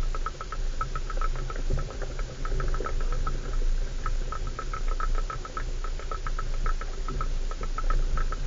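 Inside a 4x4 driving over a rough off-road track: a steady low engine and road rumble with constant, irregular light rattling clicks from the cabin as it jolts along.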